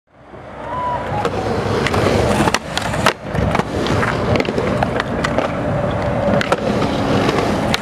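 Skateboard wheels rolling steadily on a concrete bowl, with several sharp clacks of the board and trucks, the loudest two about half a second apart near the middle.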